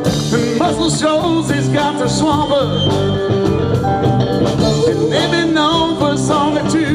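A live rock band playing, with electric guitars, keyboard and drums, and a voice singing over them.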